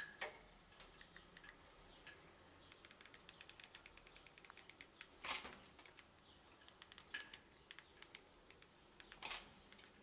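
Near silence with faint, rapid clicking and ticking and three short scrapes, about half a second, five seconds and nine seconds in: small handling noises of electrical wires and tools at a wall socket box.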